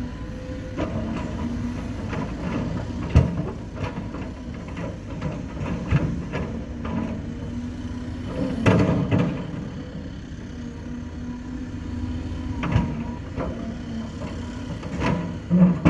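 Heavy diesel construction machinery running steadily, with sharp metallic knocks and clanks at irregular intervals, the loudest a cluster about nine seconds in.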